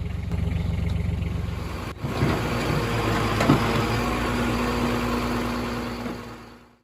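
An engine running steadily. About two seconds in, the sound cuts to a louder, noisier engine with a steady hum and a couple of knocks, then fades out near the end.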